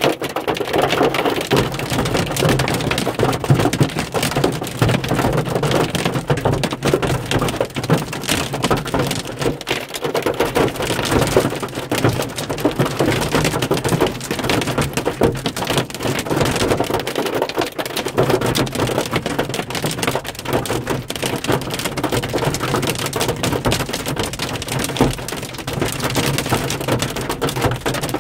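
Hail hitting a car's roof and windshield, heard from inside the cabin: a dense, steady patter of many small impacts.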